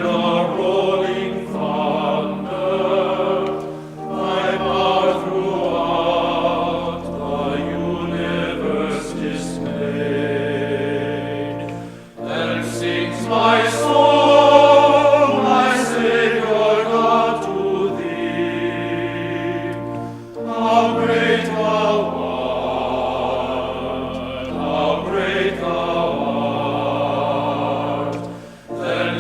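A choir singing a slow piece in long held chords that change every few seconds, over a steady low bass.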